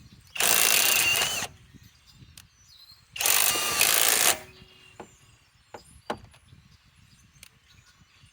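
Kobalt 24V Max 3/8-inch right angle impact wrench hammering on van lug nuts to loosen them, in two bursts of about a second each. A few light clicks follow.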